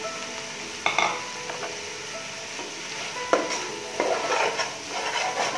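Flat metal spatula stirring and scraping vegetables in a large metal pot over a steady sizzle of frying. There is a clink of the spatula on the pot about a second in and a few more knocks after three seconds.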